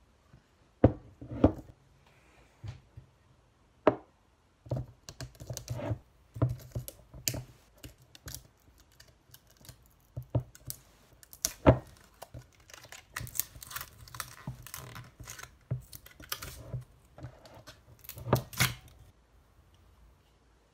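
Hands fiddling with the top of a glass bottle: scattered clicks, taps and knocks, the sharpest about a second in, at about four seconds and near twelve seconds, with a stretch of crinkling in the middle.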